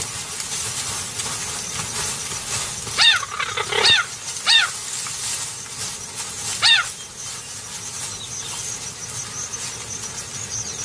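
Cheetahs chirping: four short, high, bird-like chirps, each rising then falling in pitch, between about three and seven seconds in.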